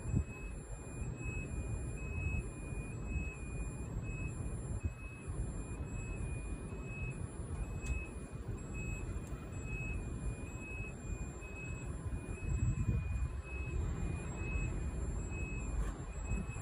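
Descent alarm of a MEC Crossover 2659ERT electric scissor lift sounding as the platform lowers: a high, evenly pulsing tone over a low rumble.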